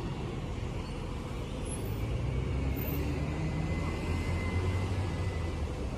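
A diesel city bus passing close by, its engine a low rumble that grows louder in the middle and then eases, with a faint steady high whine in the second half.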